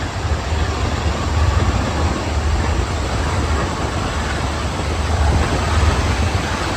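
BR Class 46 'Peak' diesel locomotive 46045's Sulzer 12-cylinder engine working under power: a loud, steady, low-pitched racket with a dense noisy roar over it.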